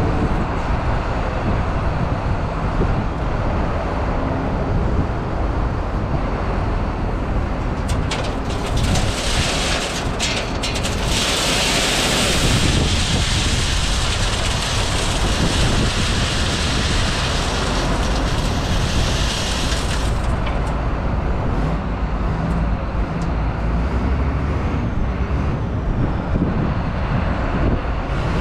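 Road salt pouring from a wheel loader's bucket through the steel grate into a plow truck's sander hopper: a loud rushing hiss that begins about eight seconds in, peaks soon after and stops abruptly about twenty seconds in. Diesel engines run steadily underneath throughout.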